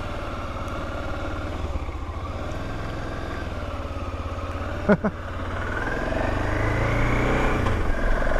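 Motorcycle engine running at low revs, then pulling away with the revs rising from about six seconds in. A short sharp blip sounds about five seconds in.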